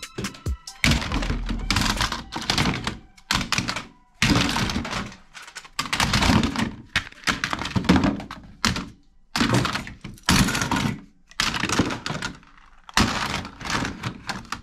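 Hard plastic toy guns and other plastic toys clattering as they are dropped onto a pile in a plastic storage bin, in a run of irregular bursts of rattling knocks with short pauses between them.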